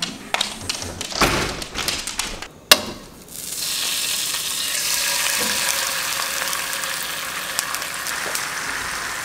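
A few scattered knocks and clicks, the sharpest about three seconds in, then hot fat sizzling steadily in a frying pan.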